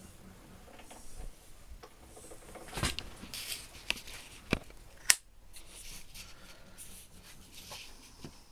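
A few sharp clicks and light knocks with some rustling, from small metal tools being handled, the loudest click about five seconds in.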